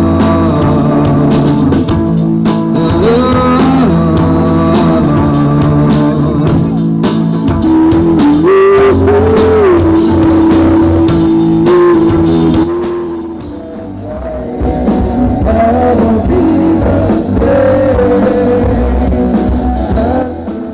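A rock band playing live, with guitar prominent over the rest of the band. The music dips briefly in loudness about two-thirds of the way through, then carries on.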